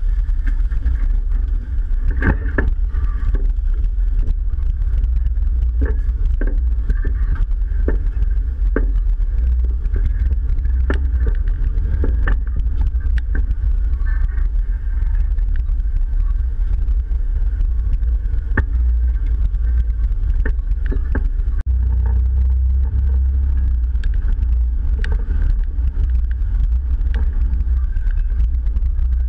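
Jeep engine running with a steady deep rumble while the vehicle crawls off-road, with frequent short clicks and knocks from the tires rolling over leaves, sticks and rocks.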